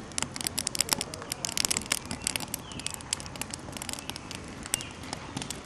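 Wood fire crackling and popping in a fire pit: a dense, irregular stream of sharp pops and snaps, with a thick run of the loudest pops about one and a half to two seconds in.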